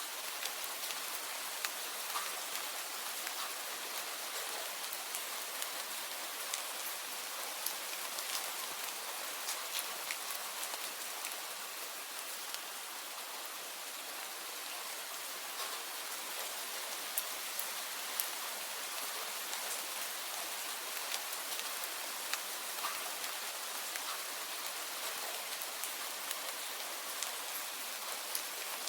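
Steady rain falling, a dense even hiss with many small sharp drop ticks scattered through it.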